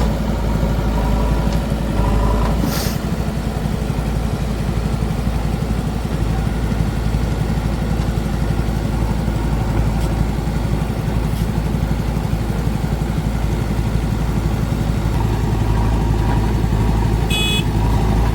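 Diesel engine of heavy machinery running steadily with an even, fast beat; its low rumble shifts about three seconds in.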